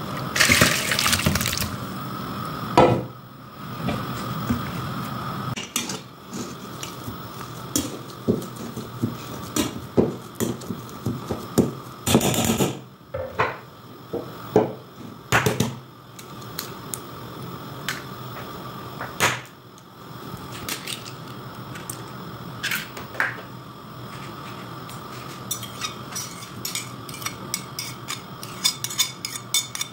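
Kitchen utensils and cookware clattering: irregular knocks and scrapes on a metal colander pot and a ceramic mixing bowl while potatoes are mashed and mixed. There is a short rush of noise near the start, and near the end a quick run of light taps and scrapes as chopped onion and parsley are scraped off a plate into the bowl.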